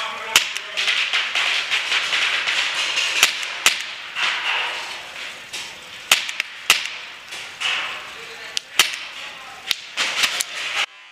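Paintball markers firing: about ten sharp pops at irregular intervals, some in quick pairs, over a steady hiss.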